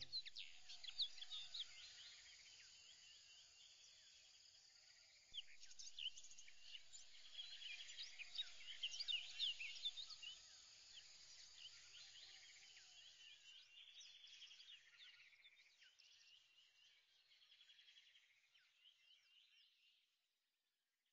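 Faint birdsong ambience: many short, high chirps and whistles overlapping, busiest about a third of the way in, then thinning out and fading away just before the end.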